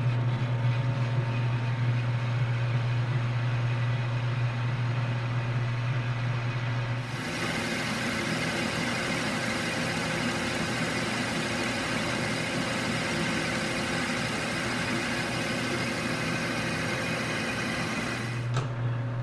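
Metal lathe running with a steady low hum while a carbide tool takes a roughing cut on a spray-welded shaft journal. About seven seconds in, a harsher hiss of the cut sets in. It drops away again near the end, leaving the hum.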